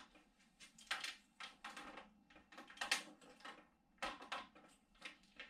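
Irregular light clicks and rattles of metal bike parts being handled and adjusted at a BMX's handlebars.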